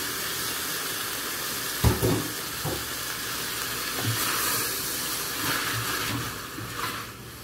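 Diced chicken and shredded cabbage sizzling in a hot pressure cooker pot as they are stirred with a silicone spatula, with a sharp knock about two seconds in and a few softer knocks after it. The sizzle gets quieter near the end.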